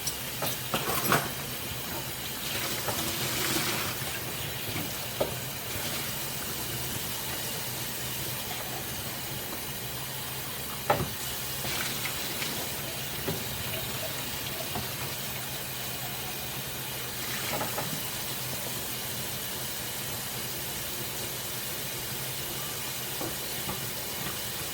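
Dishes being washed by hand at a sink: a steady hiss of running water with a few sharp clinks and knocks of dishes scattered through it.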